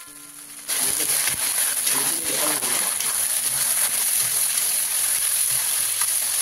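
Pork pieces frying in hot oil in a karahi: a loud, steady sizzle that starts suddenly less than a second in, with light clicks and scrapes of a metal slotted spoon stirring the meat against the pan.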